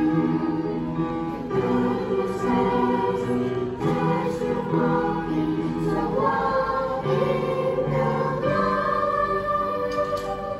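Children's choir singing together over instrumental accompaniment, ending on a long held note near the end.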